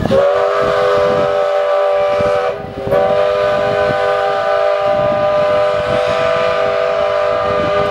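Steam locomotive whistle blowing a chord of several steady tones at once: one blast of about two and a half seconds, a brief break, then a longer blast of about five seconds that stops near the end.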